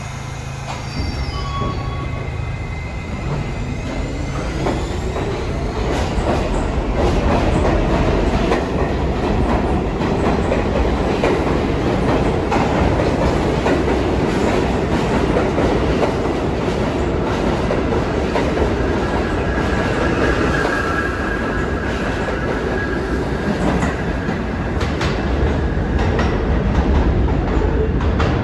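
New York City subway train running along the track through the station, wheels clattering over the rail joints. It grows louder about six seconds in, and a high wheel squeal comes in briefly later on.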